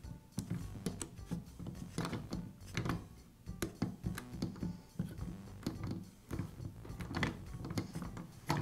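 Rubber pulley tire being pressed by hand onto the cogged wheel of a Milwaukee portable band saw: irregular small clicks, knocks and rubbing as the tire seats around the wheel, over soft background music.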